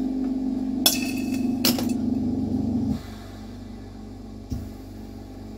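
Two sharp glass clinks, about a second in and again under a second later, as glass rods knock together at the lampwork bench. Under them a steady low hum cuts off suddenly about three seconds in, and a soft knock follows near the end.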